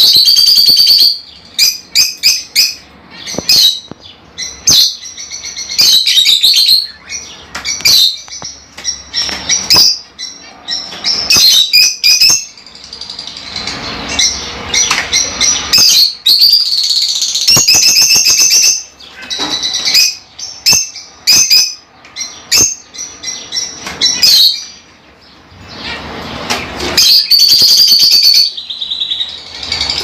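Lovebirds chirping: quick, shrill, high-pitched calls from several birds in dense, overlapping runs, with a short lull near the end.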